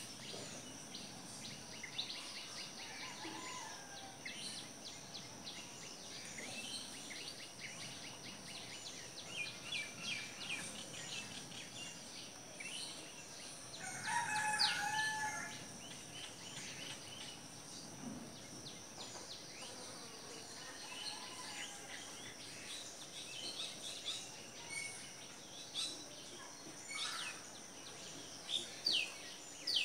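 Birds chirping outdoors: many short calls over a steady high hum, with one louder call lasting over a second about halfway through and sharper chirps near the end.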